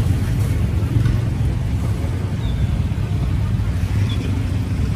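Steady low rumble of city street traffic, with no single sudden event standing out.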